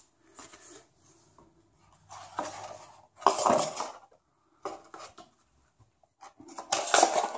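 Cardboard packaging being handled: the box, its insert tray and the instruction booklets scraped and knocked together in several short bursts, the loudest about three seconds in and another near the end.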